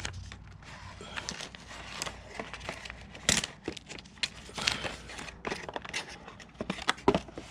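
Plastic film and packaging crinkling and rustling in the hands, with scattered small clicks and taps.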